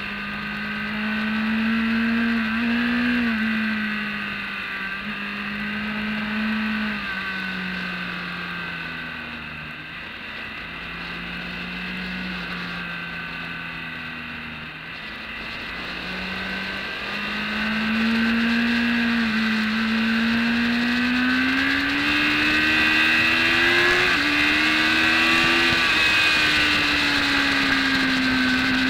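BMW K1200S inline-four engine heard from an onboard camera at track speed, its pitch rising and falling through corners. It eases off in the middle, then pulls up in a long climb from about two-thirds of the way in, dropping sharply once late on at a gear change.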